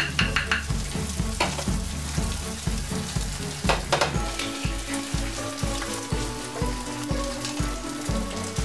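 Omelette egg sizzling in a frying pan on a gas burner, with a plastic spatula scraping and tapping the pan a few times at the start and again around four seconds in. Background music with a steady beat runs underneath.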